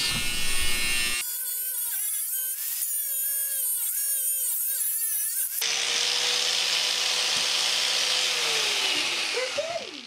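Angle grinder with a cutting disc grinding a rust-seized steel parking brake cable stub flush with its bracket. The motor's whine wavers as the disc bites into the metal. Over the last couple of seconds the grinder is switched off and winds down, its pitch falling.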